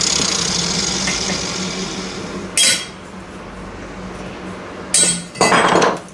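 Stainless steel exhaust pipe being handled on a workbench: a sudden metallic clang that rings on and fades over about two seconds, a short clink midway, then another clank and a brief scraping clatter near the end as the pipe pieces are fitted together.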